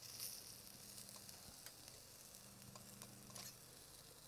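Meat faintly sizzling on the grate of a small charcoal grill over glowing embers, a steady soft hiss with a few light clicks.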